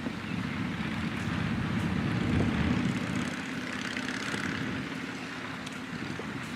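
A low engine drone that swells to its loudest about two and a half seconds in and then fades.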